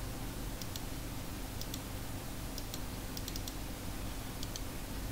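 Computer mouse button clicked over and over, short sharp press-and-release clicks in close pairs about once a second, with a quicker run of four clicks around three and a half seconds in. A steady low electrical hum runs underneath.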